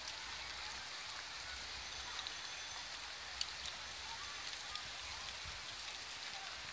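Steady outdoor background hiss with a faint low rumble, a few faint high chirps and a small tick about three and a half seconds in.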